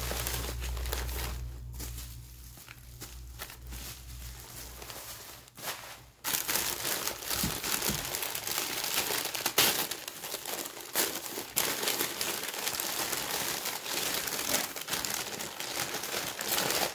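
Packing wrap being crumpled and pulled away by hand while unwrapping a parcel: handling is quieter for the first few seconds, then dense crinkling with sharp crackles from about six seconds in.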